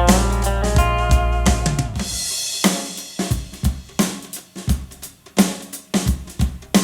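A song played back through a compact Genelec studio monitor and picked up by a microphone. Bass and chords carry on for about two seconds, then a cymbal swell leads into a break where the drum kit plays alone: kick, snare and hi-hat hits, about three a second.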